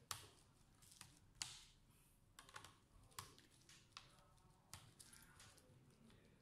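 Screwdriver clicking and tapping against a laptop's hinge screw and bottom case: a handful of sharp, irregular clicks, faint overall.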